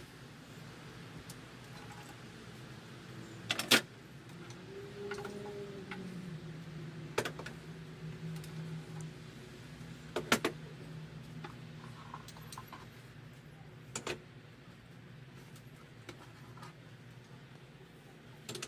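Pipe clamps being loosened and lifted off a glued-up wooden chest: several sharp metal clanks and knocks, a few seconds apart, with lighter clinks between them. A low steady hum rises in the middle.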